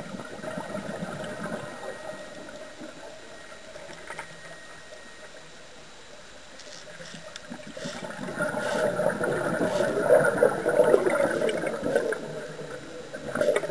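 Scuba regulator exhaust bubbles gurgling, heard underwater. A long, louder stretch of bubbling runs from about eight seconds in to near the end.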